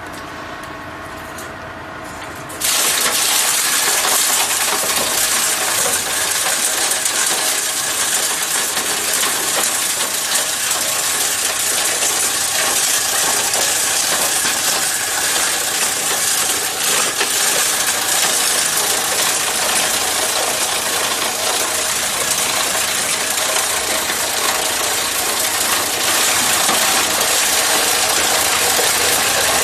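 A 7.5 HP scissor-cut plastic granulator grinding white plastic scrap. The running machine's steady hum gives way, about two and a half seconds in, to a sudden loud, dense clatter and crunching as the pieces are cut up, which goes on without letting up.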